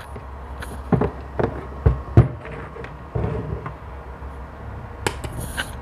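Redbo MMA-120 inverter stick welder switched on, its cooling fan humming steadily, with a few knocks as the electrode and workpiece are handled. Near the end comes a brief crackle of a test arc being struck, a sign that the welder is giving output again once its shorted output diode was taken out.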